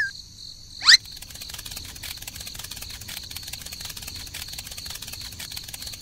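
A quick rising whistle sound effect about a second in, then crickets chirping steadily in a rapid trill.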